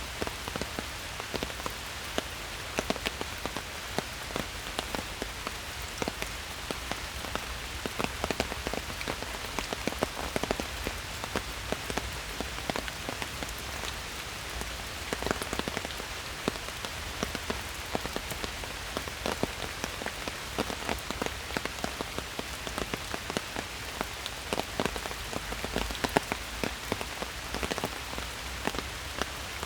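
Steady rain falling in a forest, with a dense, irregular patter of individual drops landing close by.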